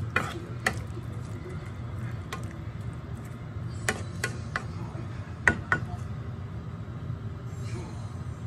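A cooking utensil knocking and clinking against a pan as meat and onions are stirred: a handful of sharp clicks, most of them between about four and six seconds in, over a steady low hum.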